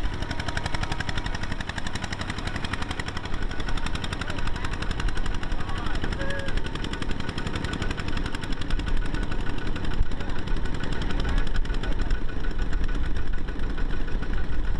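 Kubota single-cylinder diesel walking tractor running under load as it pulls a trailer through deep water and mud, its exhaust firing in a rapid, even chug. It gets louder in the second half.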